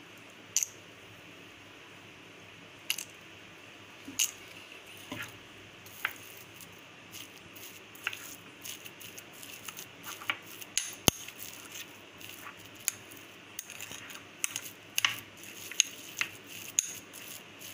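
Light, sharp clicks and clinks, irregular: a few scattered ones at first, then many close together from about halfway through, over a faint steady hiss.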